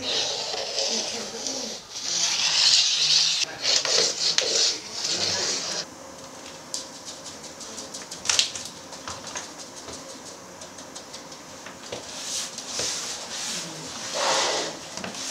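Chalk scraping across a wooden floor in long strokes as a circle is drawn round a string compass. About six seconds in it gives way to quieter sound with light clicks, and a few more scraping strokes come near the end.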